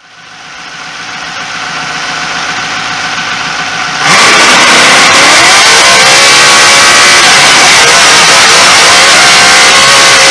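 Trophy truck race engine heard from inside the cab. It fades in as a steady run, then about four seconds in it is suddenly very loud as the engine revs and accelerates hard, its pitch climbing twice.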